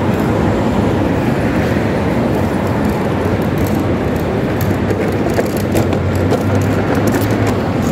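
Loud, steady traffic noise of a busy city street.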